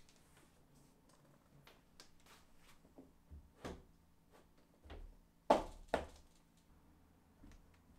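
Light taps and knocks of a large panel being handled and pressed against a door, with two louder knocks about half a second apart past the middle.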